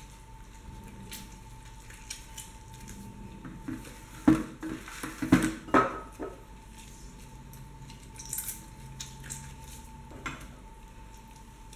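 Kitchenware clattering during food preparation: a cluster of sharp knocks and clinks of dishes about four to six seconds in, then a few lighter clinks.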